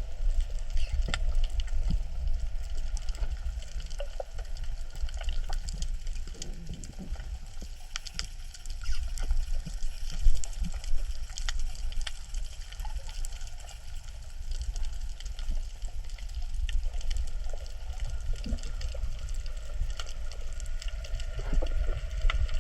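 Underwater coral-reef ambience: a dense, constant crackle of fine clicks over a low rumble of water, with one louder moment about ten seconds in. This is the crackling 'michi-michi' reef sound that the uploader has heard is the coral breathing.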